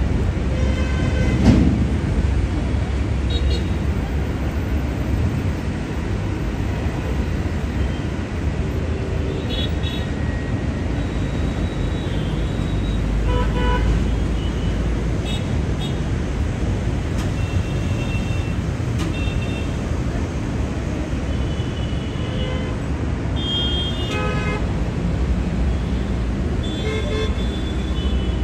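Busy road traffic with vehicle horns tooting repeatedly in short blasts, several of them scattered through, over a steady low rumble.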